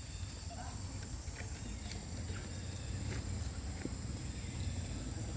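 Long-tailed macaques moving over dry leaves and stone: scattered light rustles and clicks, with one faint short rising call about half a second in. A steady low rumble and a thin high steady tone run underneath.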